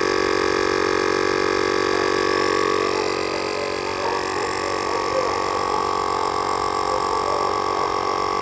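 Husky portable tire inflator's compressor running steadily while pumping up a car tire, near 40 psi.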